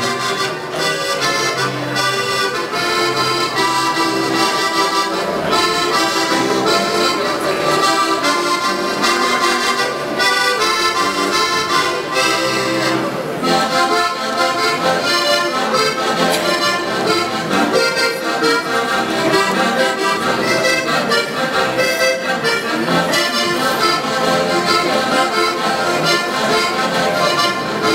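Traditional Austrian folk-dance music led by accordion, playing continuously.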